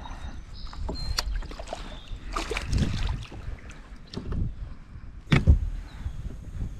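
Handling noise aboard a fishing kayak on the water: a low rumble of water and wind with scattered knocks and clicks against the hull, one loud knock about five and a half seconds in.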